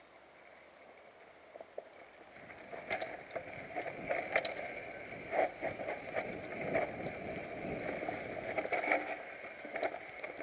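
Mountain bike riding down a dirt forest trail, heard from a camera on the bike or rider: steady tyre noise with rattling and sharp knocks over roots and bumps. Nearly quiet for the first two seconds, until the bike rolls off.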